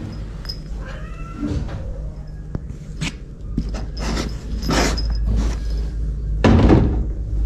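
A cat meows briefly about a second in, then plastic knocks and rustles as the cat in its plastic cone collar is handled on a plastic carrier, the loudest knock about six and a half seconds in.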